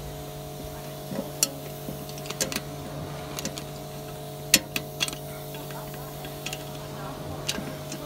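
Screwdriver clicking and scraping against metal inside the keyway of a rusted Chubb 3G115 lever lock, probing the mangled curtain and feeling for the bolt. There are about eight sharp, irregular metallic clicks over a steady low hum.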